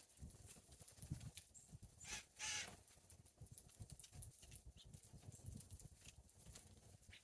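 Faint yard ambience with light ticking and tapping, and one bird call about two seconds in, lasting about half a second.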